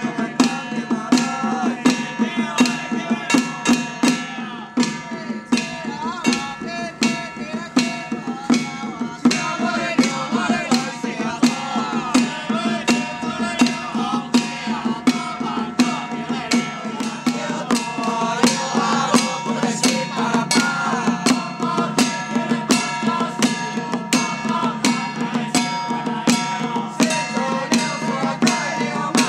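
Procession percussion: small pole-handled barrel drums struck with sticks at a steady beat of about two to three strokes a second, over ringing metal tones.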